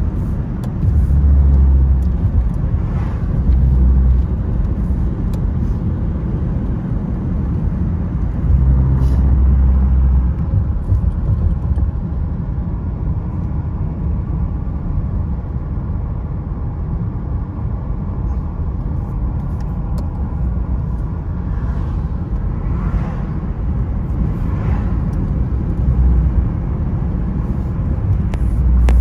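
Car road noise heard from inside the cabin while driving: a steady low rumble of tyres and engine that swells louder several times.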